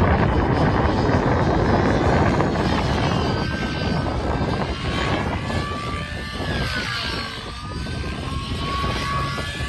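MSH Protos 700 nitro RC helicopter flying aerobatics: the glow engine and rotor give a dense rushing noise at first, then an engine whine whose pitch sweeps up and down as the helicopter manoeuvres.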